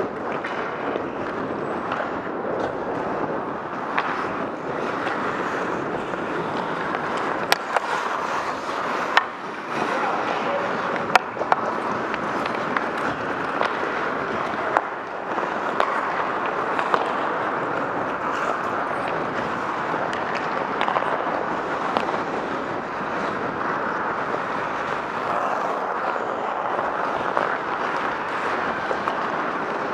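Ice hockey game sounds: a steady rush of skates scraping on the ice and open rink noise, broken now and then by short sharp clacks of sticks and puck, a few louder ones around the middle.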